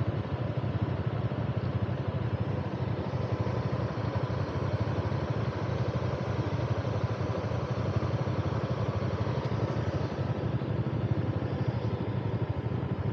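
Small single-cylinder motorbike engine idling steadily.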